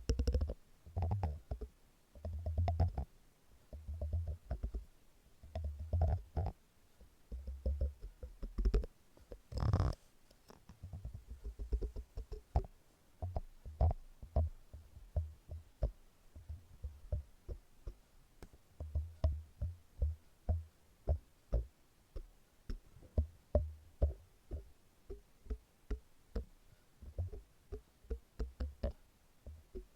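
Close-miked silicone textures being rubbed and tapped: short low rumbling rubs about once a second, one sharp loud click about ten seconds in, then a steady run of quick taps, two or three a second, with a few more low rubs among them.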